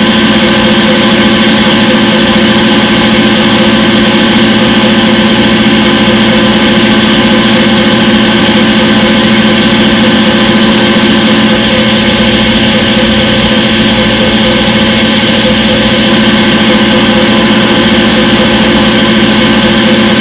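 Front-load washing machine running with a loud, steady hum and whine that holds one unchanging pitch throughout.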